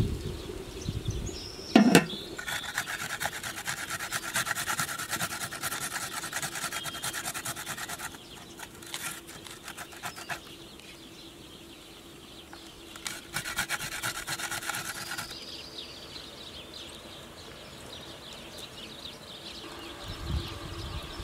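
A vegetable being grated by hand on a stainless-steel box grater: runs of quick rasping strokes, the longest lasting several seconds, with a sharp knock just before the first run.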